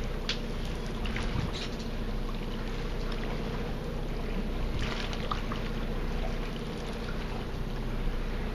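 Steady low hum of machinery aboard a fishing boat, with a few light clicks scattered through it.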